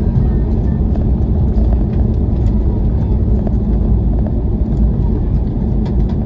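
Steady low rumble in the cabin of an Airbus A321-200 rolling on the runway after landing, with faint clicks and rattles from the cabin fittings.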